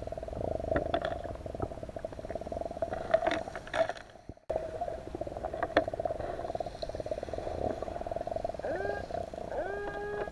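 Underwater ambience picked up by a camera in its housing: a steady fluttering hum with scattered short clicks and knocks, cut off for a moment about four seconds in. Music with held tones comes in near the end.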